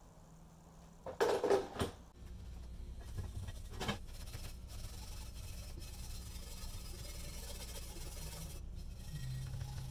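Workshop handling noise: a brief clatter about a second in and a single knock near four seconds, then a steady faint rubbing or scraping over a low hum.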